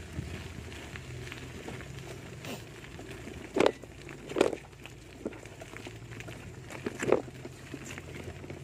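Bicycle tyres rolling over a loose gravel and rock track, a steady rough rumble, with three louder short knocks midway through.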